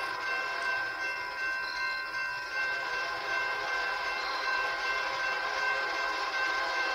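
Train horn held in a steady multi-note chord as the train rolls past a grade crossing, with the rumble of the passing cars underneath.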